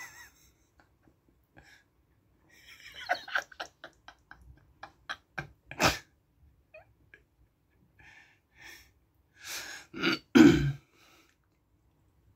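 Short non-speech vocal noises from people in the room, with a row of sharp clicks about four to six seconds in; the loudest is a pair of noisy bursts about ten seconds in.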